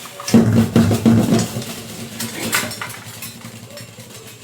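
Metal kitchenware scraping and clattering: a quick run of rasping strokes, about four a second, in the first second and a half, then lighter clinks and handling noise.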